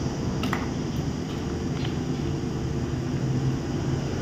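Steady low mechanical hum, with a few faint light clicks about half a second and about two seconds in.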